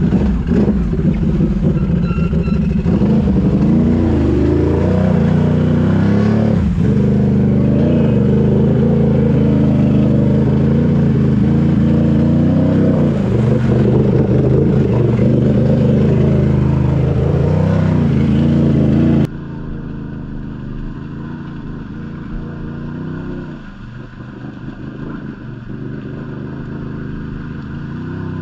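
Can-Am ATV engine revving hard and unevenly as the quad wades through a deep, muddy clay water hole, the pitch rising and falling with the throttle. About two-thirds of the way through, the sound suddenly drops to a quieter, more distant engine.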